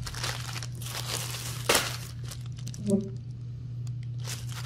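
Plastic wrapping around a pack of poly mailers crinkling and crackling as it is pressed and handled, in irregular strokes with a sharper crackle near the middle. A steady low hum runs underneath.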